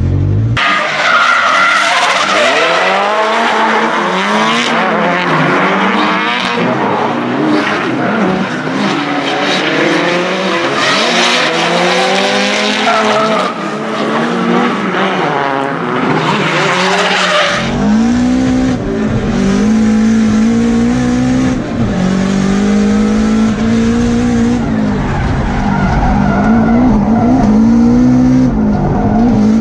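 Drift car engines revving hard up and down, with tyres squealing and skidding through slides. From about two-thirds of the way in, the sound comes from inside the car's cabin: one engine rising and falling in repeated sweeps under a heavy drone.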